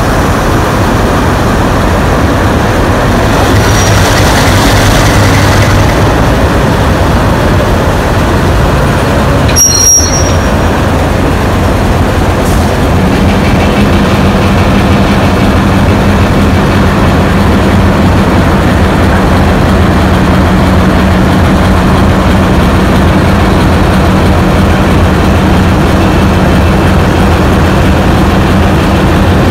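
Two ex-NSW 442 class diesel-electric locomotives, ALCO V12-engined, running loud and steady at close range. About ten seconds in there is a brief sharp high squeal. A few seconds later a steady low hum joins the engine drone and holds.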